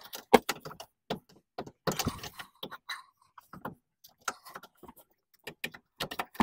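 Irregular clicks, knocks and scrapes as a rubber-and-metal engine mount is handled and worked into position against the subframe by hand.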